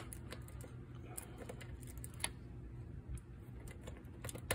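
Scattered light metal clicks and taps of a universal spring-pin socket being fitted over a wheel's lug nut, with one sharper click a little past halfway.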